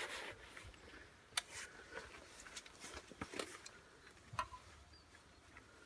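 Faint, scattered light clicks and knocks from gloved hands working the controls down by a pit bike's engine, getting it ready to start.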